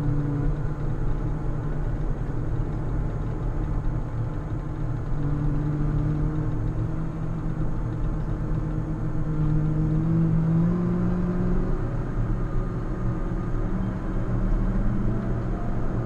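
JCB Fastrac tractor's diesel engine running under load as it pushes snow with a front plough, over a steady low rumble. The engine note climbs a little about two-thirds of the way through.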